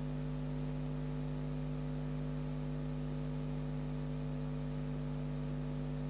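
Steady electrical mains hum, an unchanging low buzz with several overtones, with nothing else distinct over it.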